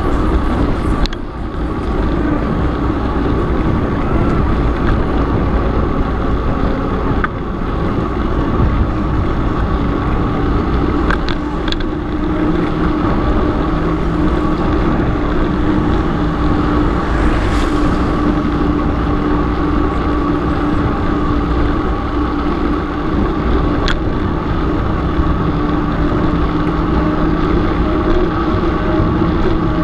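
Wind rushing over the microphone and the hum of a knobby mountain-bike tyre rolling on asphalt, with an occasional light click or rattle from the bike.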